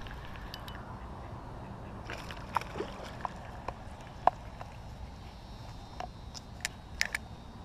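Steady low rumble of wind on the microphone, with a scattered dozen or so short sharp clicks and brief chirps, clustered around the middle and again near the end.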